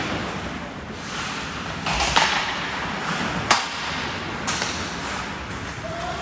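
Ice hockey play on a rink: a steady hiss under several sharp clacks of sticks and puck, the loudest about two, three and a half and four and a half seconds in.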